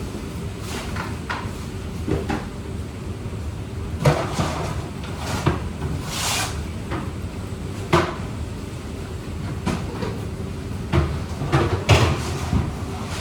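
Kitchen work sounds: scattered knocks and clatters of things being handled and set down while a fish station is set up, over a steady low hum.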